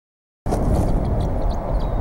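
Complete silence for about half a second, then outdoor nest-camera ambience starts abruptly: a steady low rumbling noise with a few faint, short high chirps about a second in.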